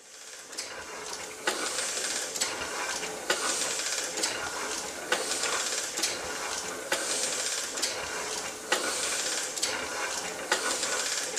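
Letterpress printing press running, fading in over the first second or so: a sharp clack about once a second with a swishing hiss that swells and fades between strokes.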